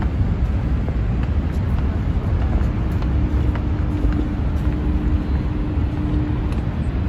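Steady low roar of Horseshoe Falls, the waterfall's water pouring over the brink. A faint steady tone sits in the middle for a few seconds.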